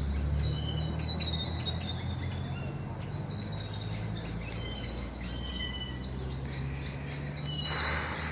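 Small birds chirping, with short high-pitched calls repeating over a steady low hum.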